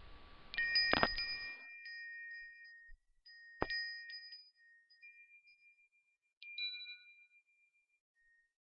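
Bell-like chime tones, struck a few times. The strongest strikes come about a second in and again at about three and a half seconds, with a softer one near six and a half seconds. Each rings on and fades.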